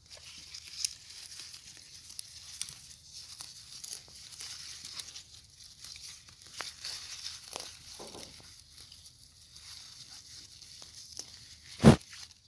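Light rustling and crackling with many small scattered clicks, as of leaves and stems being brushed and handled, and one short loud thump about half a second before the end.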